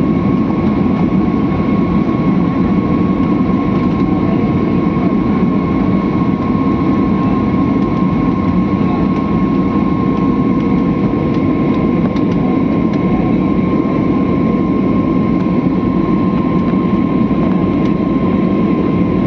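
Steady engine and airflow drone inside an airliner's cabin in flight, with a thin, constant high whine over the low rumble.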